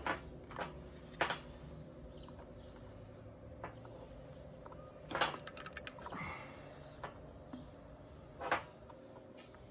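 Scattered sharp clicks and knocks of small plastic and metal trimmer parts being handled and fitted, about half a dozen in all, the loudest just after a second in and about five seconds in, over a faint steady hum.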